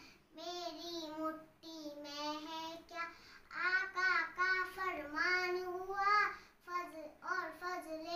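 A young girl singing a naat, an Urdu devotional song, unaccompanied. She sings in long held, wavering phrases with short breaks for breath.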